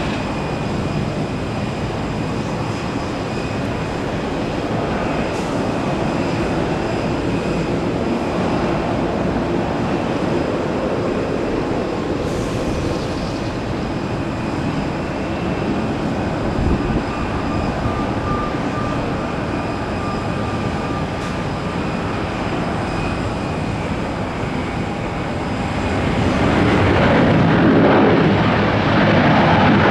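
Jet airliner engines running with a steady high whine over a wide rumble, growing louder over the last few seconds.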